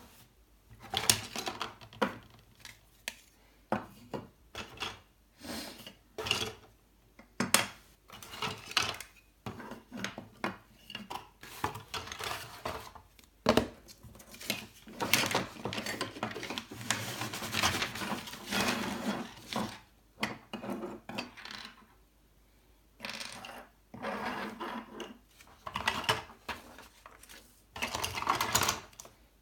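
Black injection-molded plastic 3D printer parts clattering and clicking as they are taken out of a cardboard box and set down on a tabletop, with many short knocks and a longer stretch of packaging rustling about halfway through.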